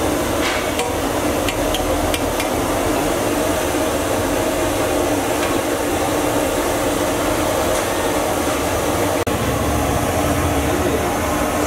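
A large wire-mesh strainer knocking and scraping a few times against a big aluminium cooking pot in the first couple of seconds as parboiled rice is scooped, over a steady loud noise.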